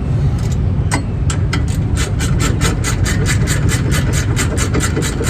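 Hand socket ratchet clicking steadily, about five or six clicks a second, as a brake bolt is run in and tightened, over a steady low rumble.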